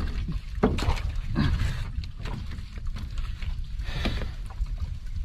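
A low, steady rumble of water and wind around a small outrigger fishing boat at sea, with a few short knocks from handling on board.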